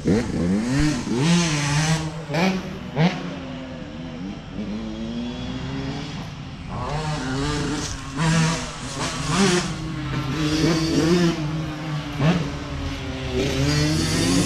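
Honda CR85R 85cc two-stroke single fitted with a new FMF exhaust, revving hard as it is ridden. The pitch climbs and drops sharply several times as the rider works the throttle and gears.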